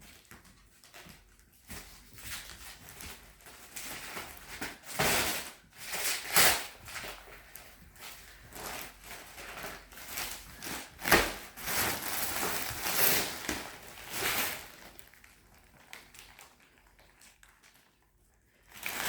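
Thick plastic mattress wrapping crinkling and tearing as it is pulled and cut away, in irregular rustling bursts that are loudest about a third of the way in and again in the middle, dying down near the end.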